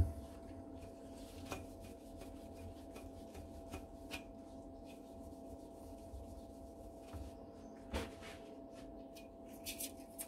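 Faint rubbing and handling noises with a few light knocks, over a faint steady hum.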